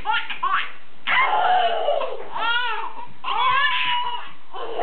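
Baby crying in long wails, the first one falling in pitch, after a few short laughing shrieks at the start.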